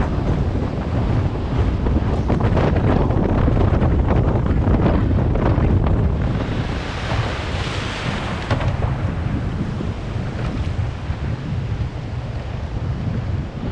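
Wind buffeting the microphone of a camera mounted on a surfski, over the wash of surf on the beach; a louder hiss of breaking surf comes about halfway through.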